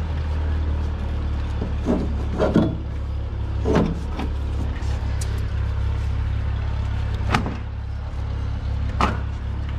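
Steady low hum under about five short, sharp knocks and clatters as cut bungee shock cords are pulled free of an Aviat Husky's steel landing-gear legs.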